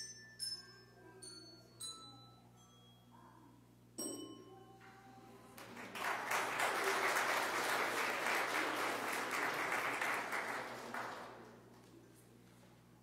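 A few struck bell-like notes, each ringing out and fading, stepping down in pitch. Then a burst of applause lasts about five seconds and dies away.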